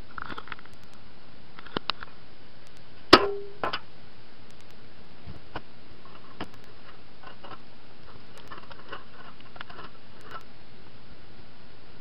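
Metal tools handled on a steel plate: two light clicks, then about three seconds in one sharp metallic knock with a short ring. Scattered small clicks and light ticking follow as the plate is marked out.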